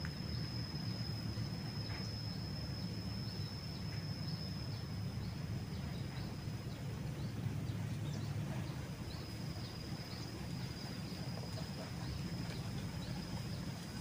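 Field ambience: a continuous high, thin insect drone that breaks off briefly about eight seconds in, with many short falling chirps around it, over a steady low rumble.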